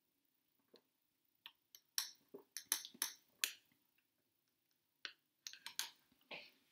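Drinking a blended iced coffee through a metal straw from a glass: quiet sips and small clicks of the mouth and straw, bunched in two short runs.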